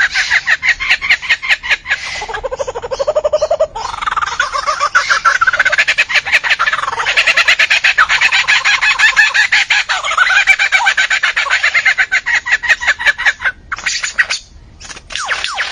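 A bird calling in a fast, near-continuous run of varied chattering and squawking notes, changing pitch and pattern from moment to moment. The calls break off briefly about fourteen seconds in.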